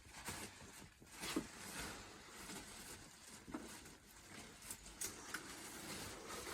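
Faint rustling of clothes being handled, with a few soft knocks.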